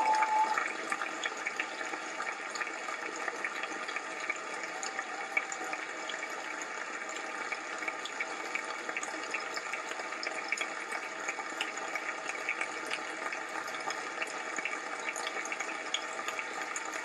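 Large audience applauding steadily, a little louder in the first half second.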